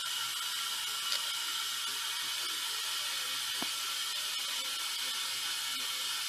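Steady high-pitched hiss, with two faint clicks about one second and three and a half seconds in.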